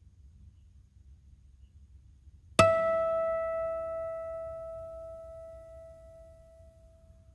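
A single musical note, struck or plucked, about two and a half seconds in, ringing clearly and slowly fading away over four to five seconds.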